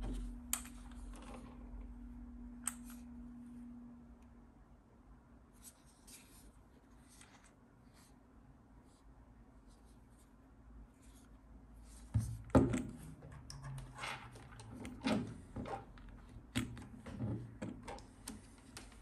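Handling of a small cordless airbrush compressor and its charging cable: scattered light clicks and knocks, busiest in the second half, as the unit is turned in the hands and the barrel plug is pushed into its socket. A steady low hum fades out over the first few seconds.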